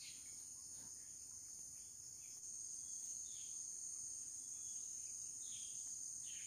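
Steady high-pitched insect chorus from the surrounding forest, with a few faint short chirps.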